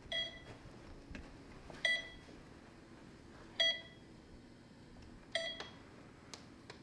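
Electronic beeping: four short, high beeps, one about every second and three-quarters, evenly spaced.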